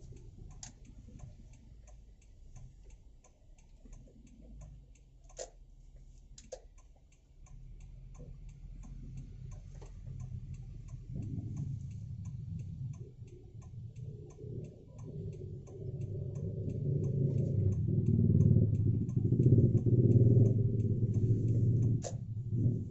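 A car's turn-signal indicator ticking at an even pace inside the cabin. From about halfway, the car's low engine and road rumble builds and becomes loud near the end as the car moves off.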